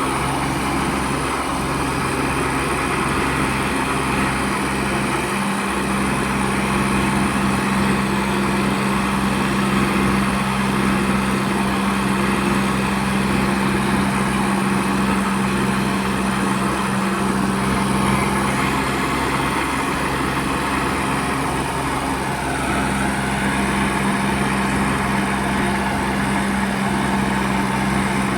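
Tractor engine running at a steady speed, a constant even hum.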